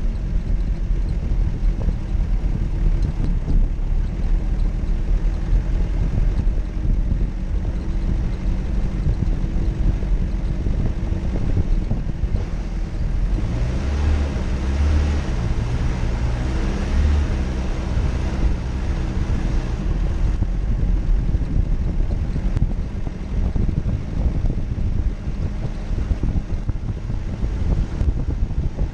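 Jeep Cherokee engine running under load off-road over a steady low rumble. Between about 13 and 20 seconds in, it revs up and down several times, then settles back.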